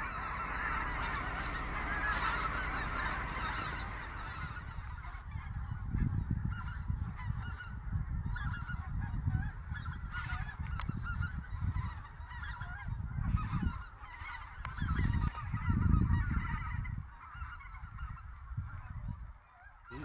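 Large mixed flocks of snow geese and greater white-fronted geese calling in flight overhead: a dense, continuous chorus of many overlapping honks that thins near the end. Gusts of low rumble come and go underneath.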